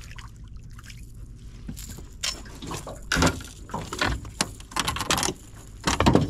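Water splashing and dripping with irregular knocks and rattles as a small bream is netted beside an aluminium boat and brought aboard, a cluster of louder splashes and knocks about three seconds in and again near the end.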